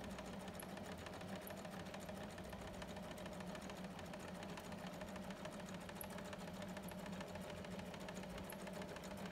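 Janome electric sewing machine stitching steadily through fabric: a steady motor hum with rapid, even ticking from the needle, stopping abruptly at the end.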